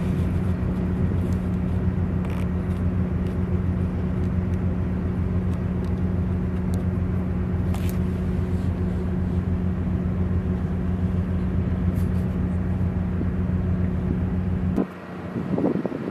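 Steady low hum of a moored ship's onboard machinery running, a deep even drone that cuts off sharply about fifteen seconds in.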